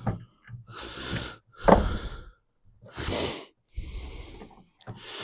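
A man breathing hard close to the microphone, a run of heavy puffing exhales about a second apart, with a sharp click at the start and a low thump with the strongest breath about two seconds in.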